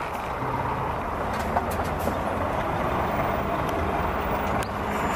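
Scania R440 tractor unit with a concrete-mixer semi-trailer driving slowly past: a steady diesel engine note with tyre and road noise.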